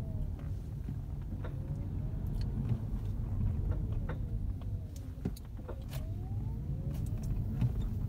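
Inside a 2012 Chevrolet Volt on the move: road rumble under a faint whine that rises and falls in pitch, with sharp clicks at uneven intervals from the front wheel as the car accelerates and decelerates. The clicking comes from a front drive shaft nut that has worked itself loose.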